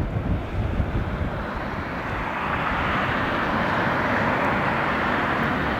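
Jet airliner engines, the sound swelling and holding steady from about two seconds in, over gusty wind buffeting the microphone.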